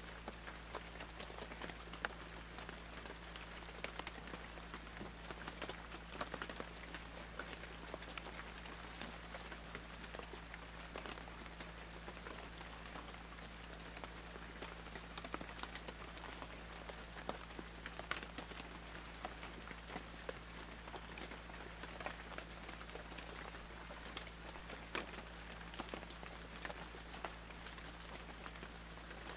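Faint, even crackling patter, many small ticks scattered over a steady hiss, with a low hum beneath.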